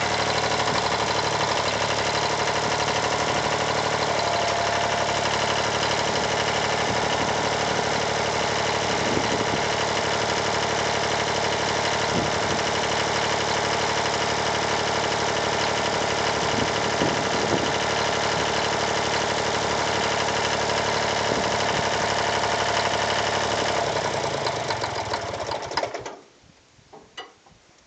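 Freshly rebuilt Yanmar 336D tractor diesel engine running steadily, then shut off near the end and winding down to a stop.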